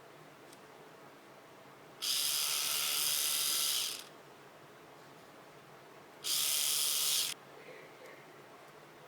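Braun electric toothbrush switched on and running twice: a steady, high-pitched buzz for about two seconds, then again for about a second, each starting and stopping abruptly.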